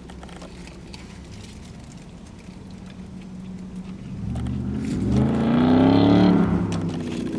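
Steady low engine hum, then a motor vehicle's engine rising in pitch and getting louder about four seconds in, peaking near six seconds before easing off.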